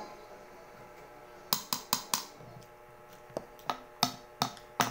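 Metal spoons clicking and scraping against a hard coconut-shell bowl as dessert is scooped out: a quick irregular series of sharp clicks that starts about a second and a half in.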